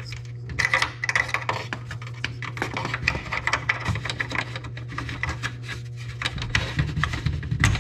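Small hard plastic clicking, tapping and rubbing as an amber LED marker light is handled and pressed into the plastic honeycomb of an aftermarket grille, with many short clicks throughout.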